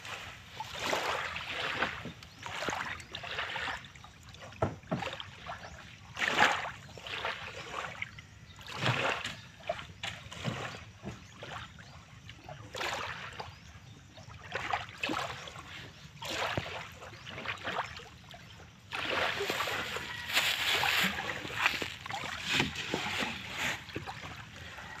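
Shallow seawater splashing and swishing in irregular bursts as a stick and a metal pole stir through it.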